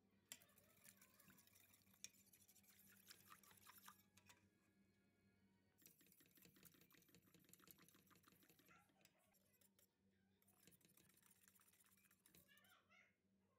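Faint rapid clinking and scraping of a wire whisk against a metal pot, stirring a milk and starch pudding mixture over low heat to thicken it, with a couple of short pauses.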